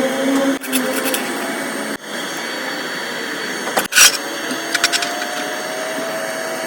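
Electric arc welding: a steady hiss and crackle of the arc, with a sharp click about four seconds in.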